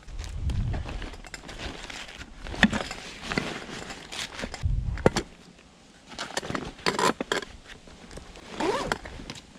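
Gear being packed into a backpack by hand: rustling of the pack's nylon and a leather pouch, with irregular knocks and scrapes, and a short zipper pull near the end.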